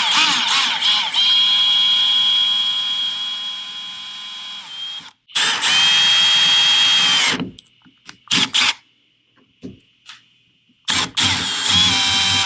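Cordless brushless drill whining as it bores a small hole through a plastic kayak hull, run in stops and starts: a long steady run, a second run after a brief stop, a few short blips, and another run near the end.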